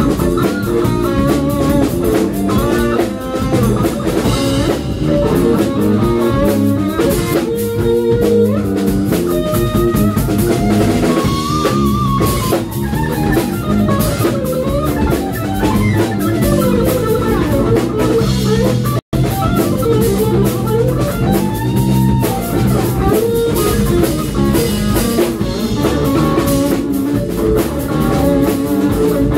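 Live fusion band playing: a Steinberger headless electric guitar plays melodic lines over electric bass and drum kit. The sound cuts out for a split second about two-thirds of the way through.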